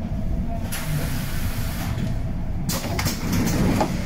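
Berlin U-Bahn A3L71 train, heard from on board: a steady low rumble, with a rush of air hiss from about a second in, then a run of sharp clicks and clattering in the last second or so.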